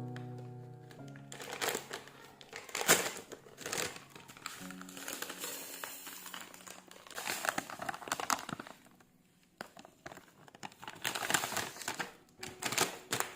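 Packaging crinkling and rustling in irregular bursts while items are handled, over background music.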